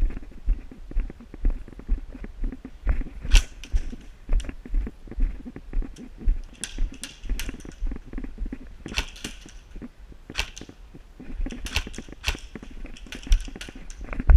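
Footsteps at a steady walking pace, about two thuds a second, heard through a body-worn camera, with sharp snaps scattered through. The snaps come singly and in quick runs of two to four, as from airsoft guns firing.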